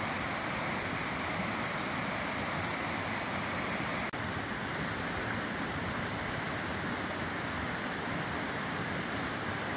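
A small river rushing steadily, with a very short break in the sound about four seconds in.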